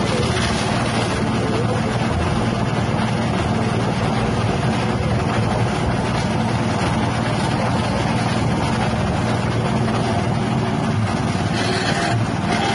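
Small 6.5 HP petrol engine driving a grass chopper, running steadily.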